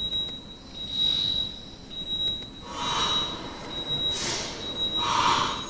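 Several recordings of sound inside a neonatal incubator, played back together: a steady high-pitched monitor alarm tone with short breaks, and, in the second half, three brief puffs of hissing air about a second apart. The overlapping sounds are the noise load a newborn hears around the clock in the incubator.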